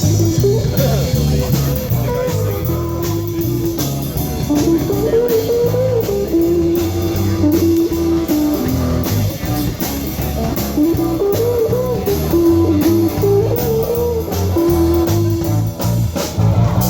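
Blues-rock song playing without vocals: an electric guitar plays a lead line over bass and drums.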